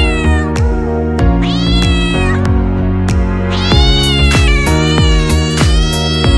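Cat meows, several drawn-out rising-then-falling calls, laid over background music with a steady beat and held bass notes.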